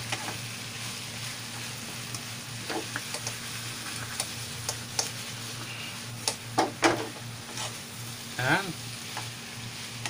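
Cubed squash frying with a steady sizzle in a pan while a utensil stirs it, scraping and clicking against the pan, with a few louder knocks past the middle. A short wavering tone sounds near the end.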